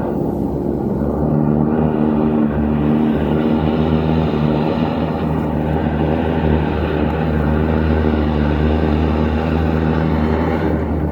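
Hydro jetter's engine-driven pump running steadily at a constant speed, a loud even drone.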